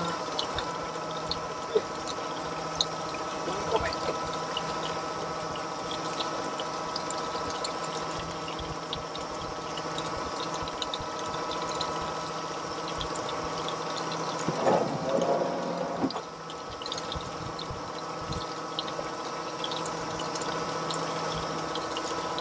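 Steady motor hum with several fixed tones over a wash of water, with scattered small clicks. A louder, wavering sound rises briefly about fifteen seconds in.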